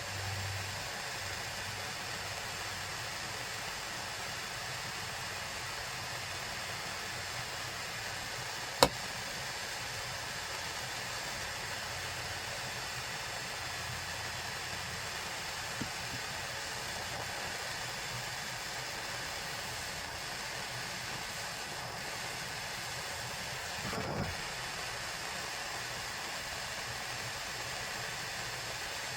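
A steady hiss with no rhythm, broken once by a sharp click about nine seconds in and a softer knock about twenty-four seconds in.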